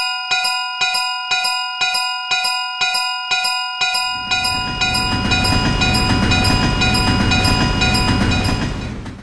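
Railroad crossing alarm bell ringing in steady repeated strokes, about two to three a second. About four seconds in, the low rumble of a passing train joins it. Both stop abruptly near the end.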